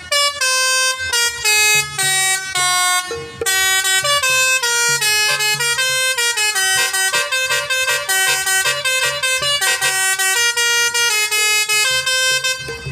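Basuri telolet bus horn with roof-mounted trumpets playing a fast melody of short notes that step up and down in pitch, with a brief break about three and a half seconds in.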